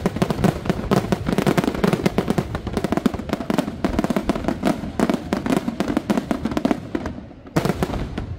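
Dense fireworks barrage: rapid, overlapping bangs and crackling from many aerial shells bursting at once. It thins briefly near the end, then another loud volley breaks in.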